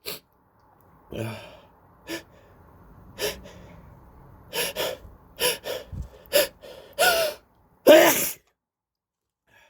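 A person with a head cold sneezing: a run of short, sharp bursts of breath builds up, then two loud sneezes come about seven and eight seconds in, the second the loudest.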